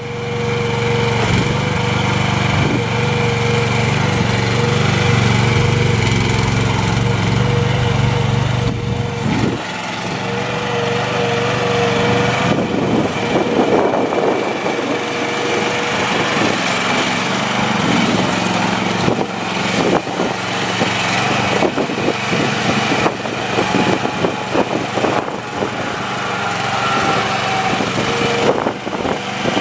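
Mini excavator's 13.5 hp gasoline engine running as the machine is worked, its sound rising and falling with the load. A steady whine runs through the first half, and short knocks come in the second half.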